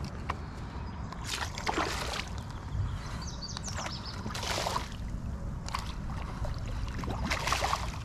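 Water sloshing around a kayak in river current, with three brief splashes about a second and a half in, about four and a half seconds in, and near the end, as a hooked fish thrashes at the surface.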